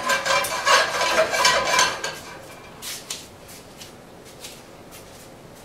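Kitchen handling noise: dishes and utensils clinking and clattering for about two seconds, then a few light, scattered knocks and clicks.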